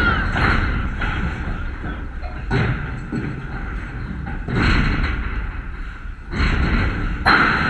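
Outdoor ballfield ambience: a steady low rumble with a few dull thumps and louder noisy swells.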